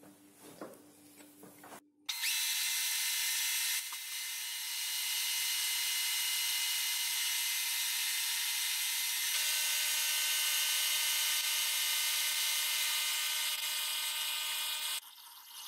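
Metal lathe turning and drilling into a metal bar held in its four-jaw chuck, played back sped up sevenfold so it sounds as a steady high-pitched whine with several steady tones. It starts abruptly about two seconds in, after a few light clicks, and cuts off abruptly near the end.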